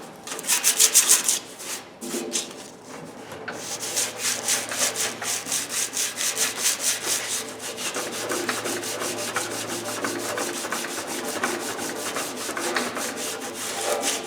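Sandpaper being rubbed by hand over the steel of an old Craftsman toolbox in quick, even back-and-forth strokes, with a few short pauses in the first few seconds.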